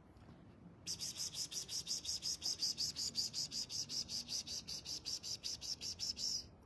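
Cricket chirping in a fast, even pulse of about five to six high chirps a second, starting about a second in and stopping shortly before the end.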